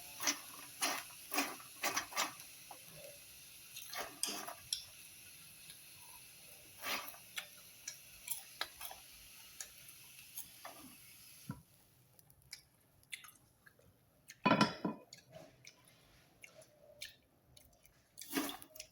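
Irregular light clicks and knocks from a pan of freshly popped popcorn being handled, with two louder knocks in the second half. A steady hiss stops abruptly about eleven and a half seconds in.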